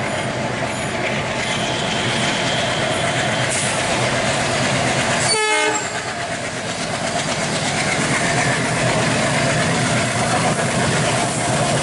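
WDG3A diesel-electric locomotive with its ALCo 16-cylinder engine running hard as it passes at speed hauling coaches, with the steady din of the engine and wheels on the rails. There is a brief break in the sound just over halfway through.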